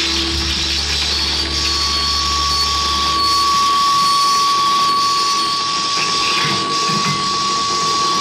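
Live electronic noise music played on mixers, effect units and turntables: a dense hiss with held electronic tones. A steady high tone comes in about two seconds in, and a low rumble cuts out about four seconds in.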